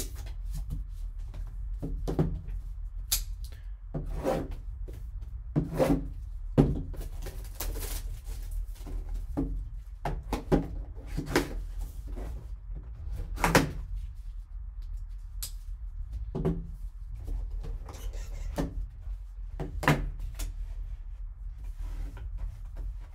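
A plastic-wrapped cardboard trading-card box being unwrapped and opened by gloved hands: irregular rustling and scraping of the wrap and cardboard, with scattered sharp taps and knocks. A steady low hum sits underneath.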